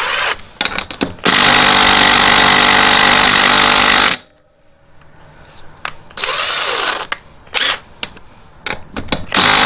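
DeWalt 20V MAX quarter-inch cordless impact driver hammering on a seized ATV wheel lug nut: one long burst of about three seconds, then three shorter bursts. It fails to break the nut loose, being a small driver not made for such bolts and running at quite low charge.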